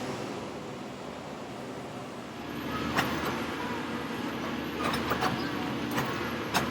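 Railroad track-maintenance machinery of a tie-replacement gang running, its engine hum rising about two and a half seconds in, with several sharp metallic clanks after that.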